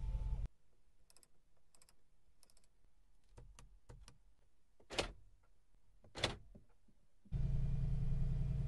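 Car's electric side-window motor running, stopping about half a second in. Soft clicks of interior controls follow, then two sharp clicks of the steering-wheel shift paddles. Near the end the electric sunroof motor starts with a steady hum.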